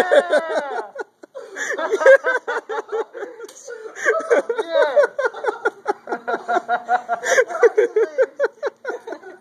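People laughing in long runs of quick repeated ha-ha pulses, with a short break a little after a second in.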